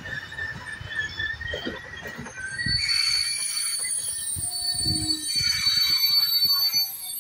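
Passenger train carriages rolling slowly into a station platform, the wheels knocking and rumbling; about three seconds in, a loud, steady, high-pitched wheel squeal sets in as the train slows to a stop.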